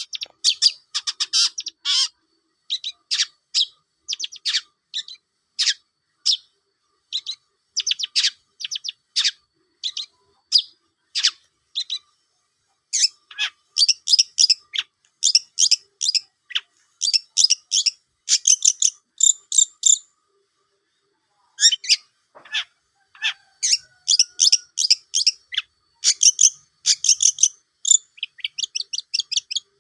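Long-tailed shrike (cendet) singing in quick runs of sharp, high chattering notes, broken by short pauses and one longer pause about two-thirds of the way through.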